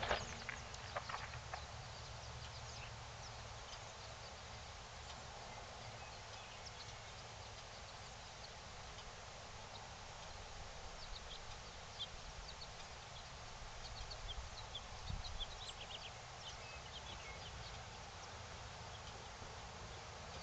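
The echo of a .22-250 rifle shot dies away at the start, leaving faint outdoor quiet with a low steady rumble. There are a few faint clicks about a second in, and scattered faint high chirps in the middle.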